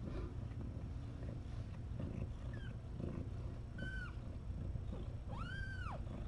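Domestic cat purring steadily, with three high-pitched mews over it: a short chirp, a brief falling mew, then a longer mew that rises and falls near the end.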